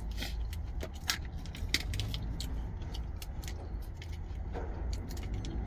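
Small thin plastic dressing cup and its lid crackling and clicking in the fingers as they are handled and peeled open. Many irregular sharp clicks over a steady low rumble.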